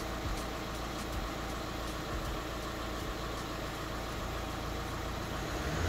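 The 2007 VW Touran's diesel engine running steadily, an even low hum.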